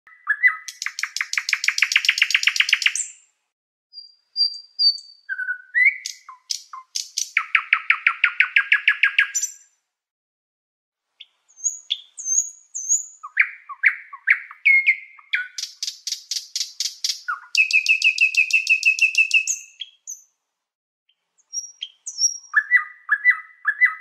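Common nightingale singing: phrases of fast repeated notes and buzzy trills mixed with short clear whistles, broken by brief pauses.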